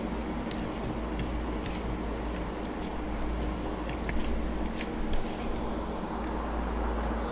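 Steady low hum and hiss with faint wet squishes and clicks as rice and dal are mixed by hand on a leaf plate; a handful is eaten near the end.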